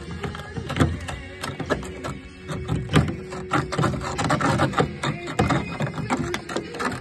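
A screwdriver scraping and prying packed dirt and rotted debris out of a rusted-through hole in old car sheet metal: irregular scratches and clicks.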